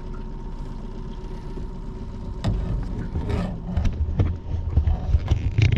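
Trolling boat's motor running steadily with a low hum. From about two and a half seconds in, irregular knocks and thumps of handling in the boat while a hooked trout is landed, loudest near the end.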